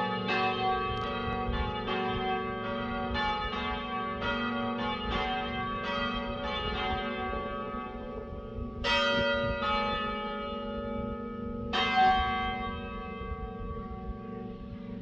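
Ring of three church bells cast by Taylors of Loughborough in 1925, rung in a steady rhythm of strokes for about the first half, then only a few widely spaced strokes, the last left to hum away.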